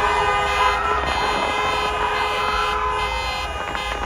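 Several car horns sounding at once in a long, steady, overlapping blare: celebratory honking at New Year fireworks.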